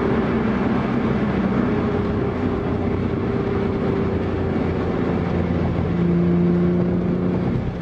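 A car's engine running hard, heard from inside the cabin. It holds a steady note that sinks slowly in pitch and turns lower and a little louder about six seconds in.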